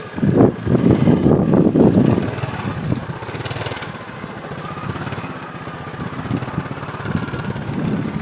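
Motorcycle engine running while riding on a dirt track, surging in loudness a few times in the first two seconds, then running steadier.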